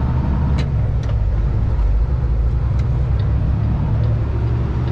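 Heavy-haul Kenworth tractor's diesel engine and road noise heard inside the cab while driving under a heavy load, a steady low drone. A few faint clicks sound through it.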